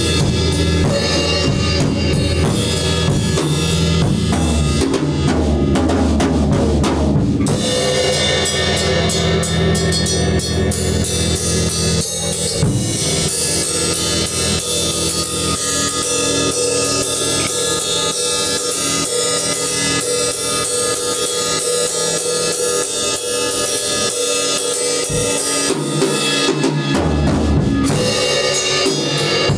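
Music with a drum kit keeping a steady beat on bass drum, snare and cymbals. The deep bass drops out briefly near the end, then comes back.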